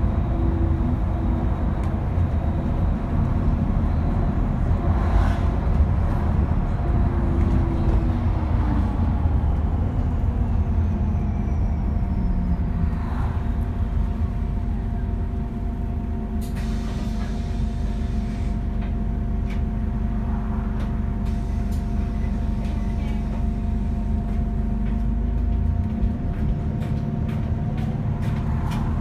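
Diesel bus engine running under way with a turbocharger whine over its low rumble; a high whine falls slowly in pitch about ten seconds in, and another whine rises near the end.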